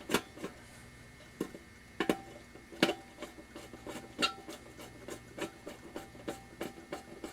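A screw being backed out and driven back in with a screwdriver: irregular clicks and short metal scrapes, a few louder than the rest.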